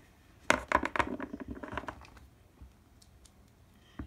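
Handling noise from plastic Littlest Pet Shop toy figures being picked up and moved on a tabletop: about a second and a half of scraping and knocking, then a single small click near the end.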